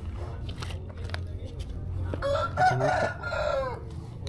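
A rooster crowing once, one long crow of about a second and a half that rises and then falls in pitch, about halfway in. A steady low hum runs underneath.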